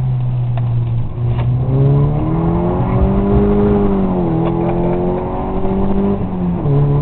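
Rover 220 GSi's four-cylinder engine heard from inside the cabin while driving. The engine note climbs about two seconds in, eases off a little around four seconds, and drops sharply near the end, as at a change up a gear.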